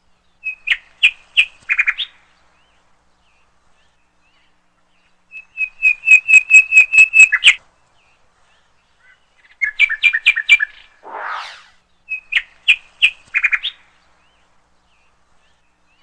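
A small bird chirping in four bursts of quick, repeated sharp notes, with a short rushing noise just after the third burst.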